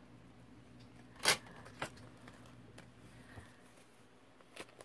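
Paper and card being handled on a journal page: one brief, crisp paper rustle about a second in, then two softer ones, over a quiet room.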